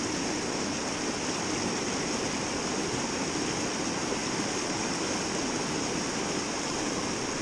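Stream water rushing steadily over a rocky riffle and small cascade.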